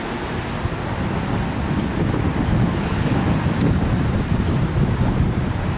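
Street noise: a steady rush of road traffic mixed with wind buffeting the microphone, swelling a little in the middle.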